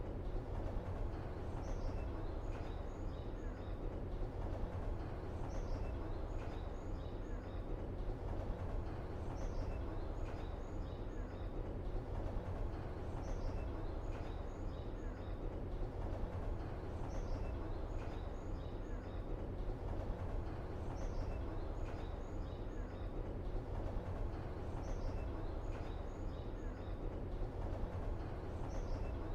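Steady low ambient rumble with a short run of high bird-like chirps that recurs at an even spacing of about three and a half seconds, like a looped background track.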